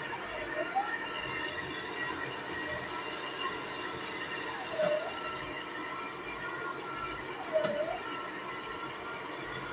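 Heavy bored-piling machinery running steadily on a foundation site. Three short swooping squeals stand out over it, about half a second in, near five seconds and near eight seconds.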